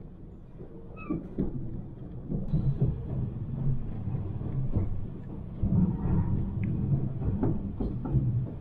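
Running noise heard inside a moving regional train carriage: a steady low rumble from the wheels on the track, with scattered knocks and rattles. It grows louder about two and a half seconds in.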